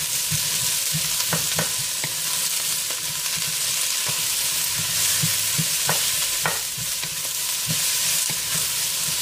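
Chopped onions, garlic and ginger sizzling in oil in a stainless steel pot as a wooden spoon stirs them, with a few sharp knocks of the spoon against the pot.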